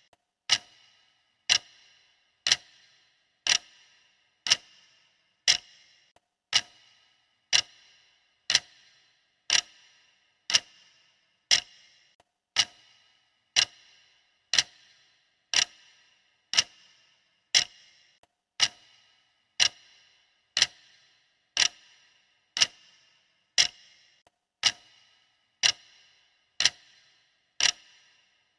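Clock-tick sound effect of a workout countdown timer, one sharp tick each second, steady and even.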